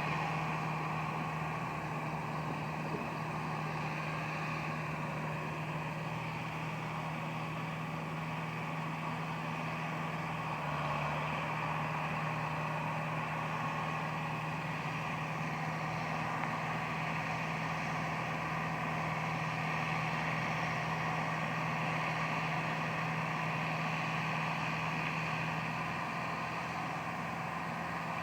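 Case 895 tractor's diesel engine running at a steady speed while working a baler.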